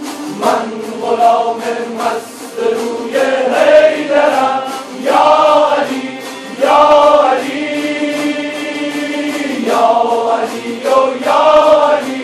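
Large ensemble of Kurdish tanburs strummed together over a steady drone, with a group of men chanting in unison in short rising and falling phrases.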